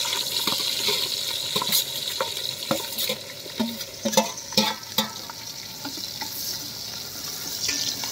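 Sliced onions and green chillies dropped into hot oil and ghee in an aluminium pot, sizzling as they start to fry. A slotted metal spoon scrapes them off a steel plate and knocks against the plate and pot a handful of times. The sizzle is loudest at first and settles after a few seconds.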